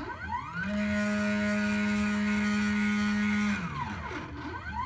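NEMA 17 stepper motors moving the CNC engraver's table on its T8 lead screw: a whine that rises in pitch as the motor ramps up, holds one steady tone for about three seconds, then falls away as it slows to a stop. Near the end it rises again as the next move begins.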